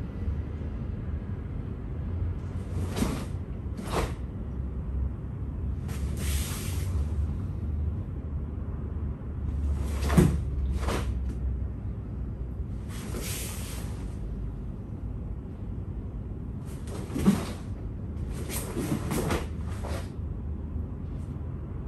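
A karate gi snapping and swishing with each sharp technique, with bare feet thudding and sliding on a foam mat, as short separate strokes over a steady low hum; the sharpest one comes about ten seconds in, another near seventeen seconds.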